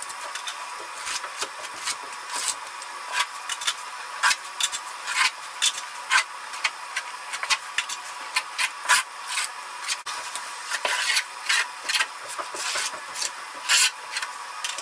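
Metal putty knife spreading and scraping thinset mortar along the floor-to-wall seam of a Schluter Kerdi shower membrane. It makes short, irregular scraping strokes, several a second.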